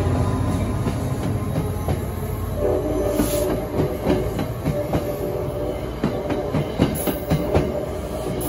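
Metro-North passenger coaches rolling past close by, their wheels clicking over rail joints. A diesel locomotive's low hum fades in the first moment, and a steady wheel squeal sets in about two and a half seconds in.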